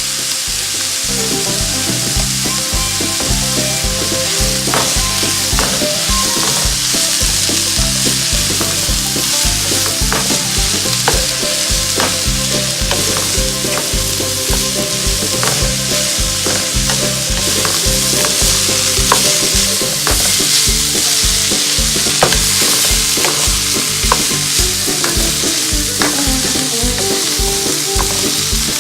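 Onions sautéing in hot oil in a pan, sizzling steadily while being stirred, with short scrapes and taps of the spoon against the pan scattered throughout.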